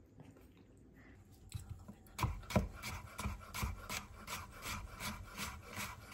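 Rhythmic rasping strokes, about three a second, beginning about two seconds in: something being scraped back and forth against a rough or wooden surface in the kitchen.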